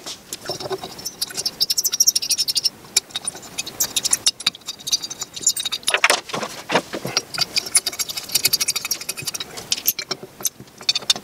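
Small metal parts of a variable-geometry turbocharger's vane assembly clinking and rattling as they are handled and fitted into the turbine housing by hand: many light clicks and metallic jingles, with a few heavier knocks about halfway through.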